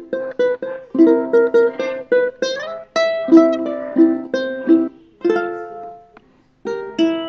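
Background music on a plucked string instrument, ukulele-like: chords and single notes, each plucked and fading, with a short slide up about two and a half seconds in and a brief pause about six seconds in.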